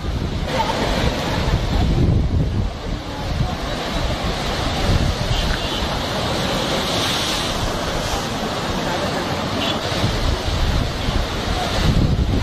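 Sea waves surging and breaking in a steady rushing noise, with wind buffeting the microphone.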